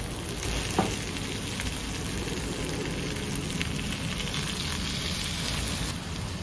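Koofte meatballs and tomatoes sizzling in a hot frying pan. The sizzle grows into a louder hiss as water is poured into the pan from a mug. There is a single sharp knock about a second in.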